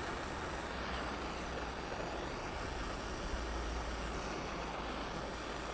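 Steady workshop background noise: an even hiss with a low rumble, no distinct knocks or clicks.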